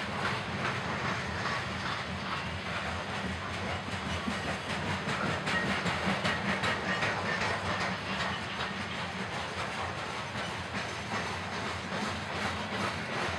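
Freight train of open coal hopper cars rolling past close by: steel wheels clattering rapidly on the rails over a steady rumble and hiss.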